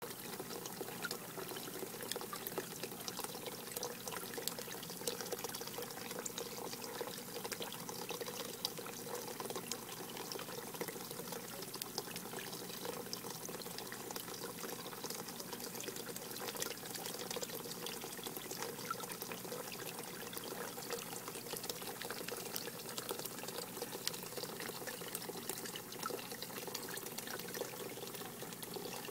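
Water running off a rain chain and splashing steadily into a water-filled barrel, a continuous patter of small splashes.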